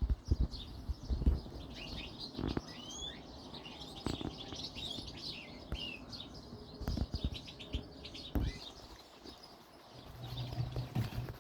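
Small birds chirping and twittering, many short calls overlapping. Low thumps sound in the first couple of seconds, and a low hum comes in briefly near the end.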